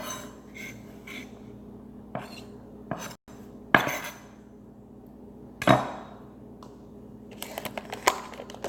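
Kitchen clatter of dishes and utensils being handled: scattered knocks and clinks, two louder knocks about four and six seconds in, and a run of quick light clicks near the end.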